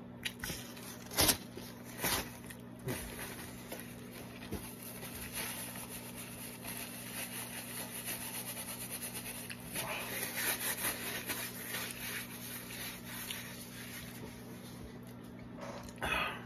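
Paper napkin rubbing and scrubbing over a mouth and face, wiping off after eating, in a long scratchy stretch. Two short knocks come about one and two seconds in.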